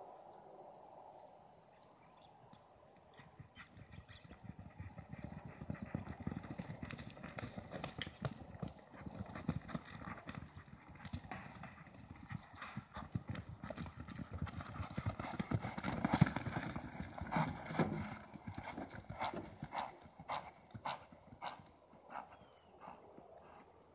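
Quarter Horse's hooves galloping on loose arena dirt in quick, rhythmic beats. They grow louder to a peak a little past the middle as the horse runs the barrels nearest the camera, then fade to separate thuds near the end.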